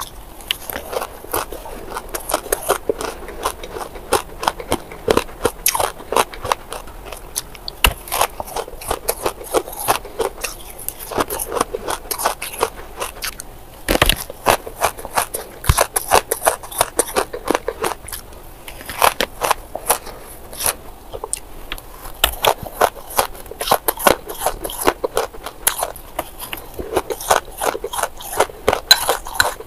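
Close-miked crunching and chewing of shaved ice: a rapid run of crisp, crackling bites, mouthful after mouthful, with brief lulls between them.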